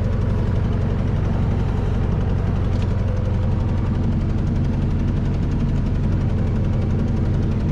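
Heavy diesel land-clearing machinery running steadily: an unchanging engine drone with a strong low rumble.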